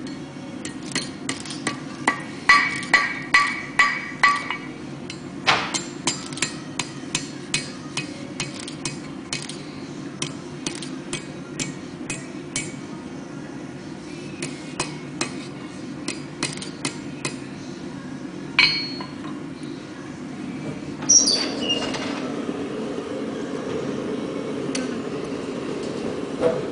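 Blacksmith's hand hammer striking a red-hot steel bar on an anvil in a run of quick blows, two to three a second, the anvil ringing on the heavier strikes. The hammering stops about two-thirds of the way through, leaving a few scattered clanks.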